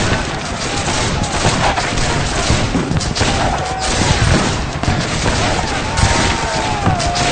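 Battlefield sound effect: dense, continuous gunfire from many weapons at once. Over it come a couple of long, slightly falling tones, about halfway through and near the end.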